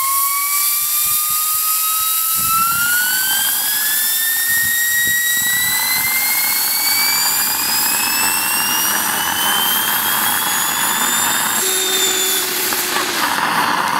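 Home-built jet engine made from a turbocharger, its turbine whine rising steadily in pitch over a rushing combustion noise. About twelve seconds in the whine breaks off and the sound turns rough as the turbine binds against its housing, the turbo bearings being worn out.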